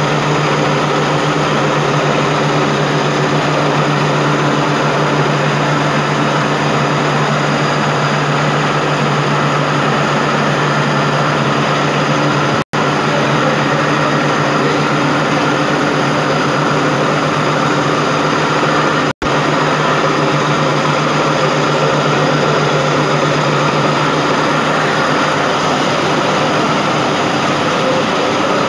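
Machinery of an automatic atta (wheat flour) plant running: a loud, steady mechanical hum with a constant low drone. The sound cuts out for an instant twice, about 13 and 19 seconds in.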